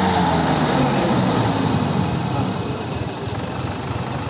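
Diesel tractor engines of a Swaraj 855 and a Sonalika running steadily with a low drone, the two tractors chained back to back for a tug-of-war pull.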